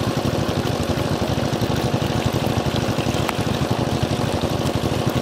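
Muddy water pouring steadily over a mud bank into a woven bamboo basket full of small fish, over a small engine running steadily at an even pace.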